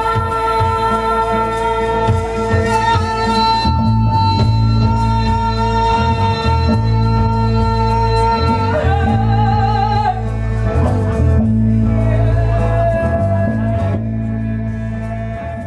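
Live band music: female singers holding long notes over acoustic guitar, frame drum, bass and drums. The sound starts to fade near the end.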